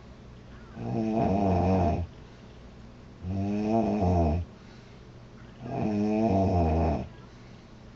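A woman snoring loudly: three snores about two and a half seconds apart, each lasting a little over a second, with a pitch that dips and then rises.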